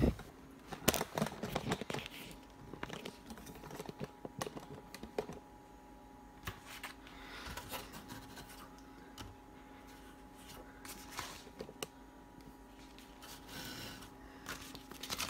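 Scattered light clicks, taps and scratches from a plastic car grille being handled on a fabric couch, some close together in quick runs, over a faint steady hum in the room.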